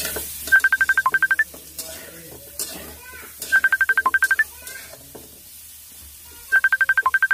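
A phone ringtone: a quick run of about a dozen electronic beeps, mostly on one note with one lower and one higher beep, lasting about a second and repeating three times about three seconds apart. Between the rings a metal spatula scrapes and knocks against a metal wok during stirring.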